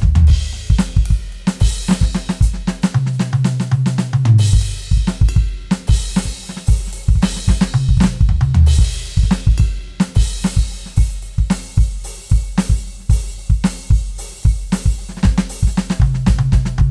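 Roland TD-17 electronic drum kit playing a custom kit patch: a busy groove of kick, snare, hi-hat and cymbals. Runs of low tom hits come in a few times.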